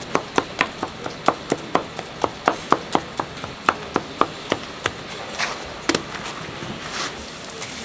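A long wooden stick knocking rapidly on a wooden tray, about four times a second, as it is jabbed through breadcrumb-coated dough rounds to punch the donut holes. The quick tapping stops about five seconds in, followed by a couple of single knocks.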